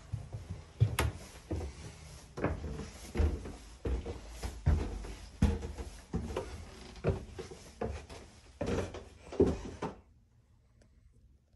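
Footsteps climbing wooden stairs, one step about every three-quarters of a second, a dozen or so in all. They stop abruptly about ten seconds in.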